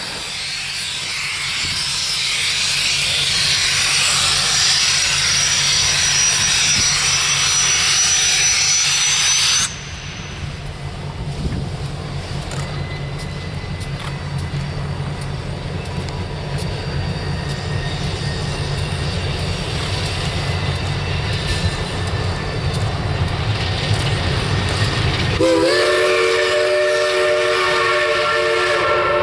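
Shay geared steam locomotive: a steady hiss of steam for about ten seconds, which stops abruptly. Then a low rumble with scattered clanks of the engine working, and about 25 seconds in a multi-note steam chime whistle comes in with a short rise in pitch and holds.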